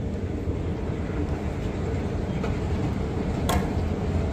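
Steady low rumble of background noise in a large station hall, with a single brief click about three and a half seconds in.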